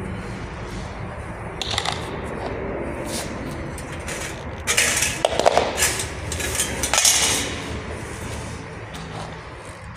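Aviation tin snips cutting a galvanized steel drywall profile, with light metallic clinks and rattles as the metal is handled; a cluster of louder, sharper snips about halfway through.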